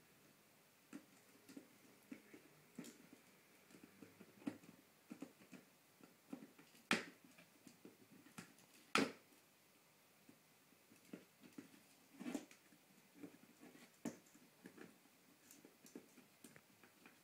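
Shetland sheepdog puppy chewing and gnawing a chew toy: quiet, irregular small clicks and crunches, with two sharper clicks about seven and nine seconds in.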